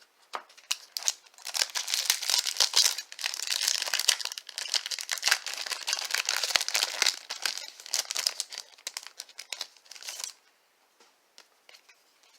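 A baseball card pack wrapper being torn open and crinkled by hand, a dense crackling that stops about ten seconds in.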